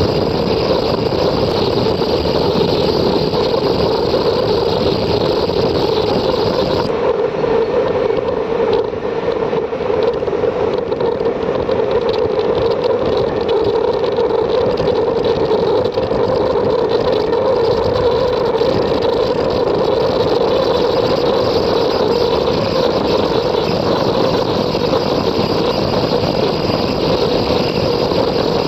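Ultrasonic quilting machine running, a loud steady mechanical drone with a strong hum. Its higher hiss drops away about seven seconds in and comes back near the end.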